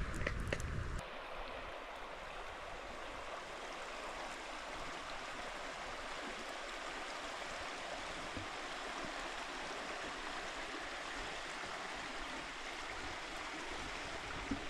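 Steady rush of running water from a stream. In the first second there is a low wind rumble on the microphone and a few crackles from the wood fire, then only the even sound of the water.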